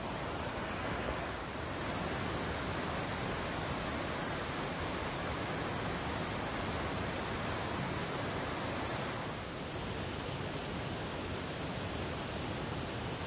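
Steady, unbroken high-pitched buzzing of a tropical insect chorus over a constant rush of flowing river water.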